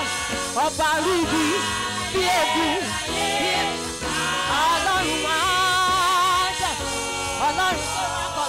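Church choir singing a gospel song into microphones, with a lead voice holding long notes with vibrato.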